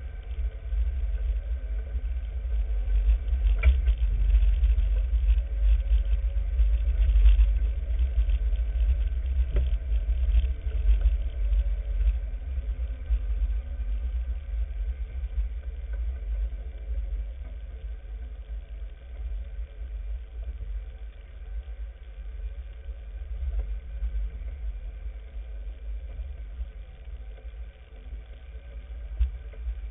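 Off-road vehicle driving slowly along a rough dirt track, heard as a steady low engine and drivetrain rumble. A few short knocks come from bumps in the first third, and the rumble eases somewhat in the second half.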